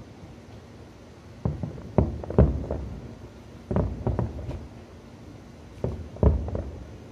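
Aerial firework shells bursting: three groups of two or three sharp bangs, each trailing off in a short echo.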